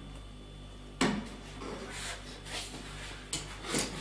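Handling noises at a water softener's control valve and flexible hoses: a single knock about a second in, then light clicks and rustling.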